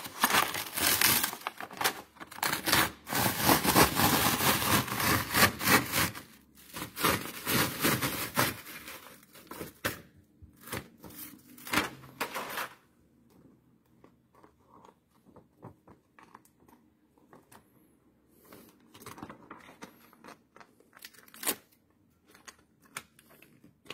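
Backing paper being peeled off a self-adhesive Teflon-coated fabric sheet, with loud crackling and tearing for the first nine seconds or so. A few shorter crackles follow, then only faint handling rustles.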